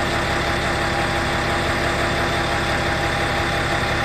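Tenryu Hamanako Railroad TH2100-series diesel railcar standing stopped with its diesel engine idling: an even low drone with a few steady hum tones over it, unchanging throughout.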